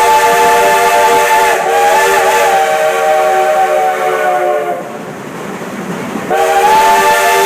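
Steam chime whistle of Cass Scenic Railway No. 6, a Shay geared locomotive, blowing a long chord-like blast that wavers briefly, stops about two-thirds of the way through, then sounds again a second and a half later, sliding up into pitch as it opens.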